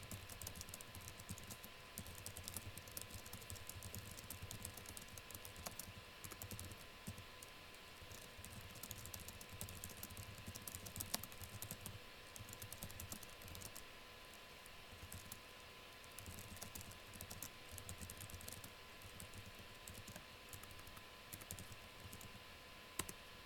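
Typing on a computer keyboard: a long run of fast, uneven key clicks with a few short pauses, faint, over a steady low hum.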